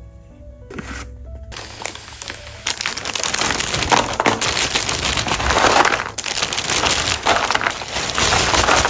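Stiff clear-plastic blister packs crinkling and clattering as a pile of them is handled and shuffled, starting about a second and a half in and carrying on loudly until it cuts off near the end.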